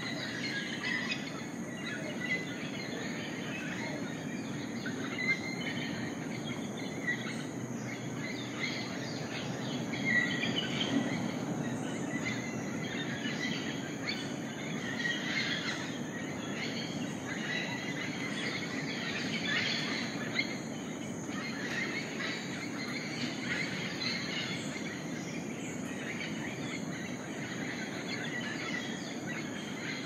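Rainforest ambience: a steady high-pitched insect drone with many birds calling in short, scattered chirps, over a low steady rushing background.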